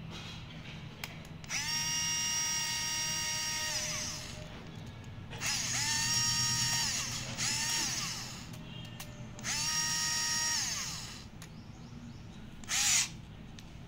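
Cordless screwdriver's small electric motor whirring in three runs of one to three seconds as it turns screws in a metal strip, the pitch rising as it spins up and dropping as it stops; the middle run breaks off briefly and starts again. Near the end comes a short harsh burst, the loudest moment.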